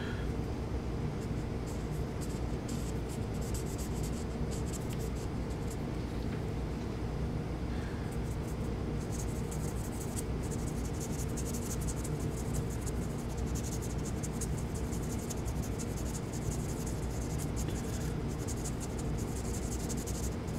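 Felt tip of a gun blue touch-up pen scratching and dabbing along metal serrations, a run of faint, rapid scratches over a steady low hum.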